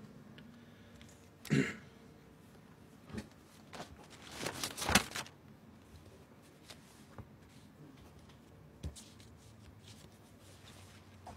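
Paper being handled, as when pages are turned: a flurry of crisp rustles about four to five seconds in, with a brief soft sound near the start and scattered faint clicks.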